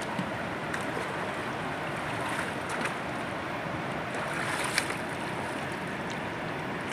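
Steady rush of a fast-flowing, muddy river, with small splashes as a person wades and gropes in the shallows. A short sharp knock about five seconds in.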